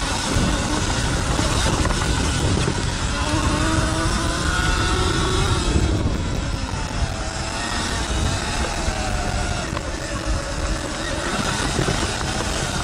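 Sur-Ron L1E 60-volt electric dirt bike riding a rocky dirt trail. The motor's whine rises and falls with the throttle several times, over heavy wind rush on the microphone and tyre noise.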